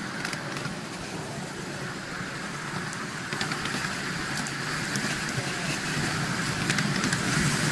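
Miniature railway passenger train running along the track: a steady rumble and clatter of the carriage wheels on the rails, with scattered clicks. It gets louder about three seconds in.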